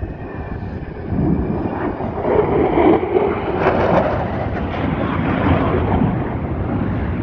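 Jet aircraft flying past, its engine roar building about a second in and loudest a few seconds later.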